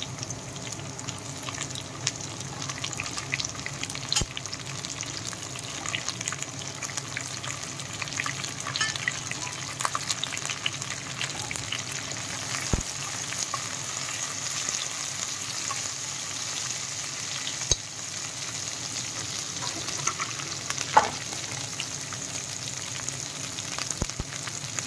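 Sliced ivy gourd, onion and green chillies sizzling steadily in hot oil in a wok, stirred with a wooden spatula that clicks against the pan a few times.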